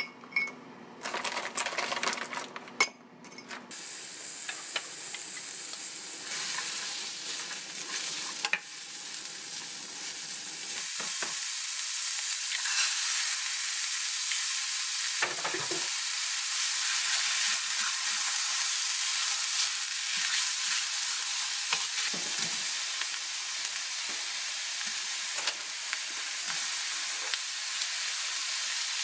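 A short clatter of shrimp poured into a glass cup, then chopped onion, bell pepper and egg sizzling in a frying pan as they are stir-fried. The sizzle builds to a steady hiss that runs on with stirring.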